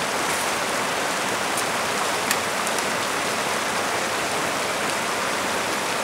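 Shallow mountain creek rushing steadily over rocks, with one short click a little over two seconds in.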